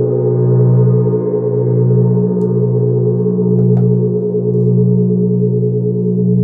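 Large gong ringing on after soft mallet strokes: a deep, sustained hum with many overtones, its low tone swelling and fading about once a second.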